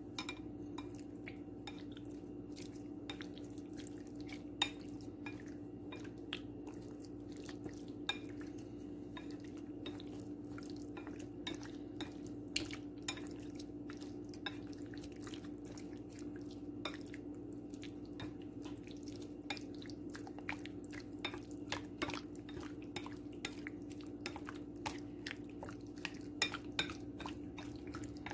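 Wooden chopsticks stirring raw chicken wings in marinade in a ceramic bowl: frequent irregular clicks and taps of wood against the bowl, over a steady low hum.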